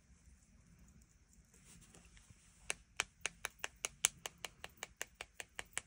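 Brushes tapped together over and over to flick watered-down white ink onto black card as snow spatter: a run of light, sharp clicks, about five a second, starting a little under three seconds in.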